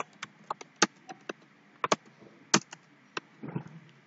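Computer keyboard keystrokes: about a dozen separate, irregularly spaced key clicks, some sharper than others.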